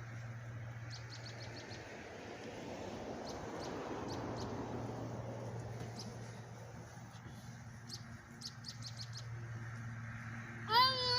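Small birds chirping in short, quick series of high notes over a steady low hum, with a high voice calling out near the end.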